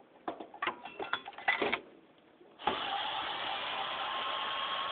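Cordless power screwdriver running steadily for a little over two seconds, driving a screw out of a ceiling fan's housing. Before it come a few clicks and knocks of the tool and parts being handled.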